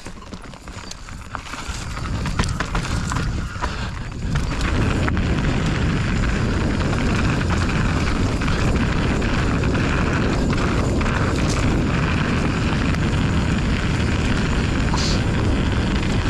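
Mountain bike running down a dirt trail, with clicks and rattles from the bike over the ground; about four seconds in, steady, heavy wind noise on the microphone builds as speed rises and covers everything else.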